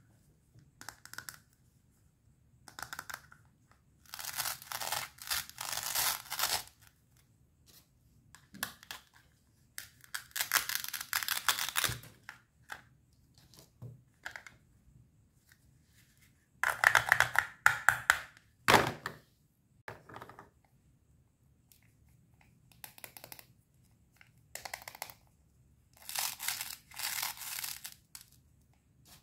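Velcro joins on plastic toy cutting fruit and vegetables being pulled apart: several rasping rips of a second or two each, with short plastic clicks and knocks from the pieces being handled between them.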